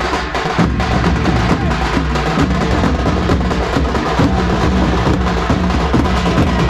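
A troupe of large barrel drums played together with sticks: a dense, continuous beat of deep booms and sharp stick strikes.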